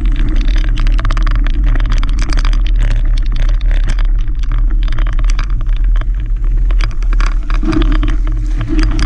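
Mountain bike rolling over a gravel trail: many small crunches and clicks from the tyres on loose gravel and the bike rattling over bumps, over a steady low rumble.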